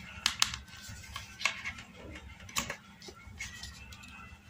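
A few scattered light clicks and taps as metal multimeter test probes are handled and set against the leads of a bridge rectifier.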